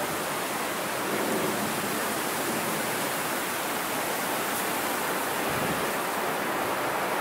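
A steady, even rushing hiss with no distinct events in it; nothing from the dog's rolling in the snow stands out.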